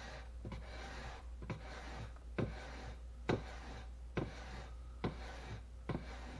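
Shopsmith jointer blade, clamped in a wooden jig, pushed back and forth over a wet 1000-grit Shapton waterstone. Each stroke gives a scraping hiss with a light knock where it turns, about one stroke a second.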